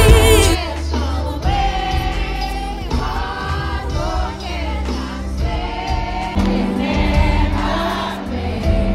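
Live R&B concert music heard from the audience in a large arena: a female singer sings with her band, the sound dull and echoing as picked up by a phone's microphone. A cleaner recording of music cuts off about half a second in as the live sound takes over.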